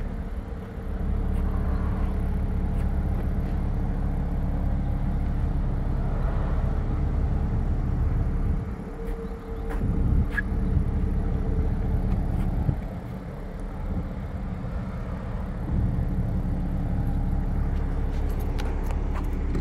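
Mercedes-AMG C43's 3.0-litre twin-turbo V6 idling steadily, with a deep, even rumble that eases briefly twice.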